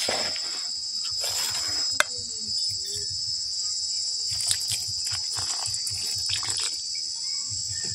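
Crickets chirring steadily at a high pitch, over a steel ladle scraping and stirring flour in a metal bowl, with water poured into the bowl about six seconds in.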